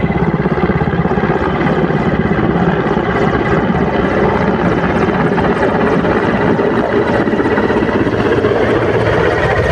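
Indian Air Force Mil Mi-17 helicopter descending to land at close range, its main rotor beating loudly and steadily over the whine of its turbine engines.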